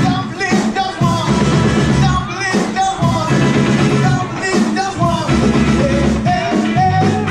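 Background music: a song with a steady beat and a singing voice.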